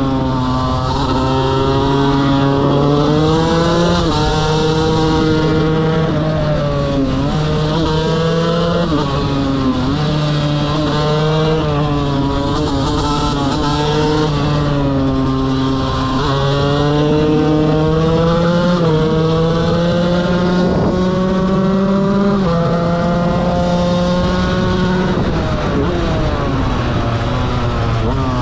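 KTM 125 motorcycle engine revving hard under full throttle. The pitch holds high and breaks with a short dip every two to three seconds as the rider works through the gears.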